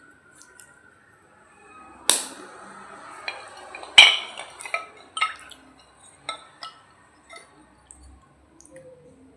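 Hard dried clay cracking and crunching, with two sharp snaps about two and four seconds in and then a run of smaller clicks and crackles that thins out toward the end.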